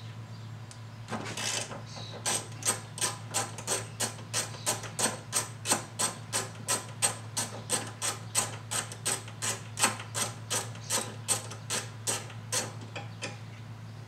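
Hand socket ratchet clicking at about three clicks a second while loosening a 12 mm bolt. The clicking starts about two seconds in and stops near the end.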